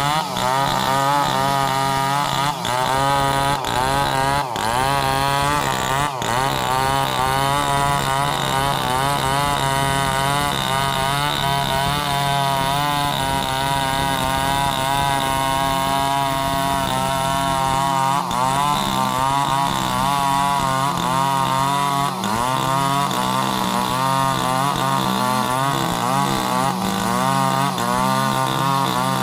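Two-stroke chainsaw running hard, cutting sengon wood, its engine pitch wavering up and down under load.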